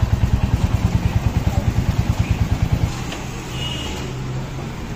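Royal Enfield Hunter 350's single-cylinder engine idling with an even thump, about ten beats a second. A little under three seconds in the thumping stops abruptly, leaving a steadier, quieter engine hum.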